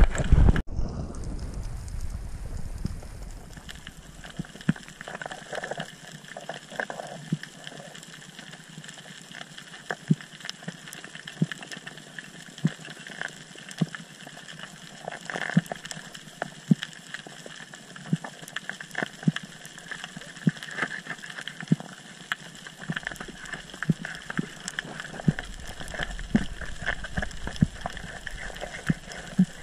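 Underwater reef ambience through a GoPro housing: a steady hiss with irregular sharp clicks, one or two a second, typical of snapping shrimp on a coral reef. A loud muffled rush of water at the very start cuts off abruptly.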